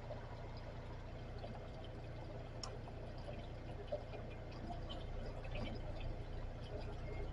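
Water from a running kitchen tap pouring and trickling steadily through a freshly jetted drain, flowing freely now that the grease blockage is cleared. A small click about four seconds in.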